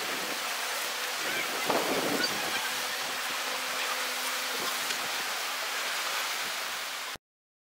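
Wind blowing across the microphone over open sea, with the faint steady drone of a distant speedboat engine underneath. It grows briefly louder about two seconds in and cuts off suddenly near the end.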